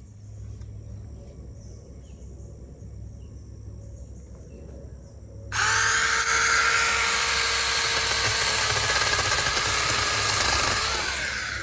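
SeeSii 6-inch battery-powered mini chainsaw starting suddenly about halfway through with a high electric whine and chain noise. It runs for about five seconds, cutting through a tree branch, its pitch dipping slightly near the end. Before it starts, insects chirp steadily.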